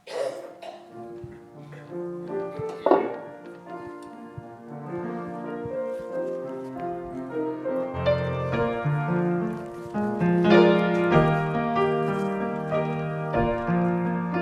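Slow instrumental music starts, sustained chords that change every second or so, with a deeper bass part coming in about eight seconds in and the music growing louder.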